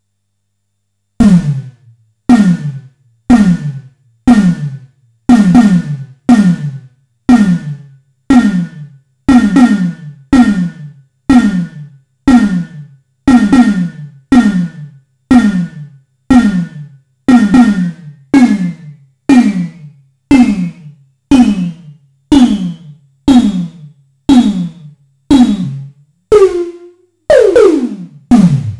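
Simmons SDS7 analog-digital drum module's snare voice, struck from a pad about once a second, each hit dropping quickly in pitch. The analog pitch modulation is being adjusted between hits, so the ringing upper tone climbs higher over the run, and the last few hits sweep down longer and deeper.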